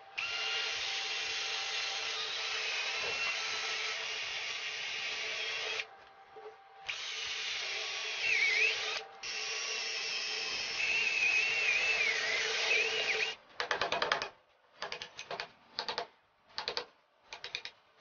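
Cordless drill boring into the iron core of a microwave oven transformer to clear out the space left by the cut-away secondary winding. It runs steadily in three long stretches, with a wavering squeal from the bit in the later ones. Near the end come a string of short bursts.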